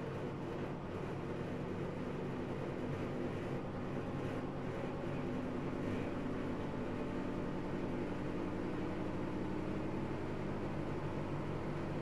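Whirlpool FSCR90425 front-loading washing machine running in its spin cycle with an unbalanced load: a steady motor and drum hum made of several held tones.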